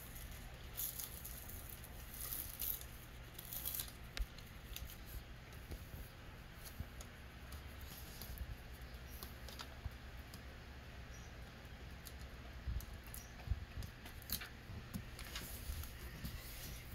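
Quiet, scattered rustling and small clicks of sealing tape being peeled open and handled, over a low steady rumble.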